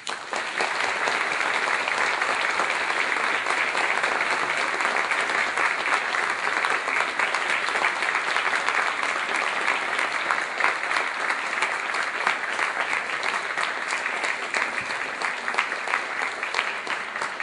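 Audience applauding steadily in a concert hall, a dense patter of many hands clapping, easing a little toward the end.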